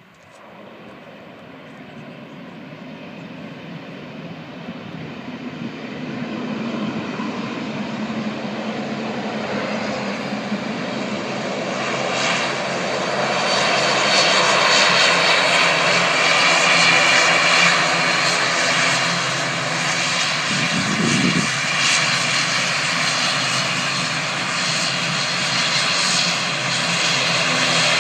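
Airplane engines growing steadily louder over about fourteen seconds as the aircraft nears, then staying loud with a steady hum of several held tones.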